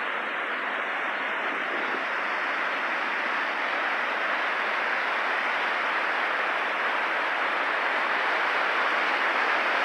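Heavy water rushing over a low concrete dam spillway and churning in the river below, the flow raised by recent heavy rain. It is a steady, even rush that grows slightly louder as the camera moves closer.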